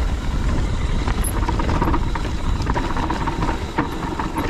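Mountain bike riding down a rocky, dusty trail: a steady low rumble of wind on the microphone with tyre noise and scattered clicks and rattles from the bike over loose stones.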